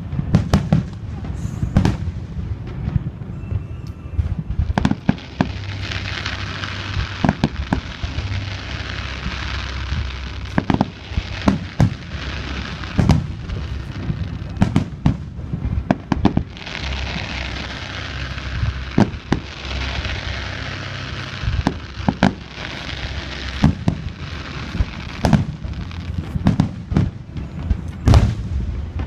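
Aerial fireworks shells bursting in a rapid barrage of booms and sharp bangs over a low rumble. A high hiss swells up twice, a few seconds each.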